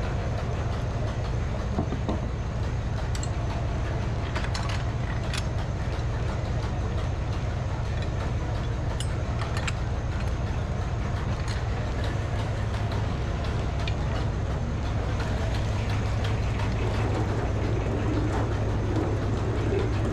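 Frick sawmill running: a steady, low engine drone with a few faint clicks.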